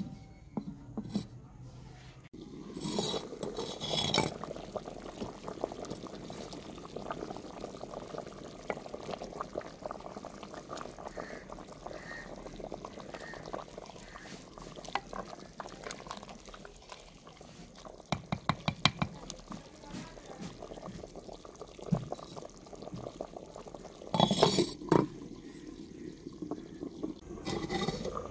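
Potato and aubergine curry simmering and bubbling in a clay handi, stirred with a wooden ladle, with a few sharper knocks of the ladle and clay lid.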